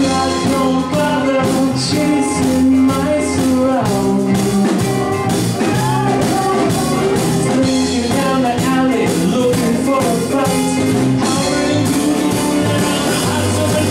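Live rockabilly band music: a male singer over bass guitar, drums and keyboard, with a steady beat.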